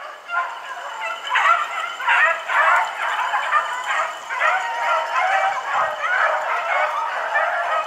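A pack of beagles baying in full cry on a rabbit's trail: many overlapping bays and yelps in a continuous chorus, the sign that the hounds are running the jumped rabbit.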